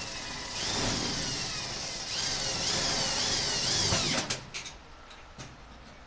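Power drill boring into the dryer's sheet-metal rear bulkhead. The motor's pitch sags under load and recovers several times, and it stops about four seconds in. A few light clicks follow.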